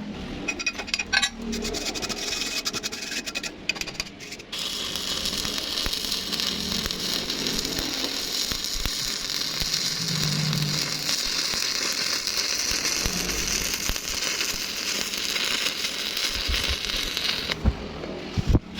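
Electric welding arc crackling and hissing: a few short stuttering bursts for the first few seconds, then a steady continuous weld that stops shortly before the end.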